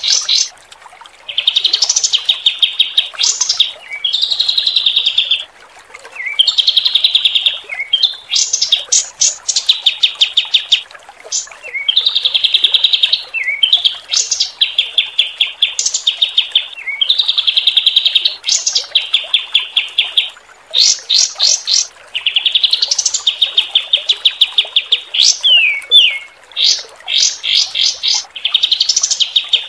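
Songbird song of the rapid, trilled 'tembakan' kind used in masteran training recordings: loud, fast-repeated trill phrases of one to two seconds each, broken by short pauses, with a faint flowing-water background underneath.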